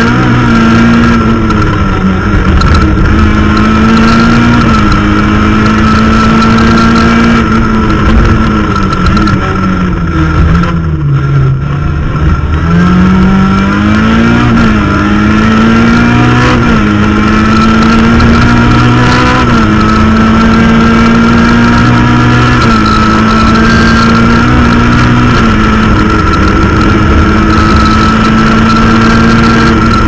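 Rally car engine running hard, heard from inside the cabin. Its pitch climbs and drops briefly every few seconds, falls steadily about eight to eleven seconds in, then climbs again, with a steady high whine underneath.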